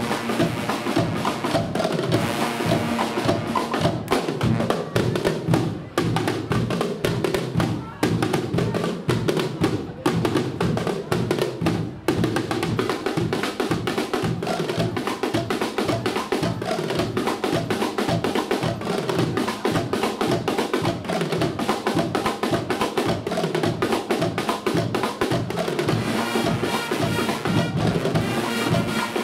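Guggenmusik band playing: a brass section with sousaphones and trumpets over drum kits and a bass drum keeping a steady beat. There are a few short stop-time breaks in the first half.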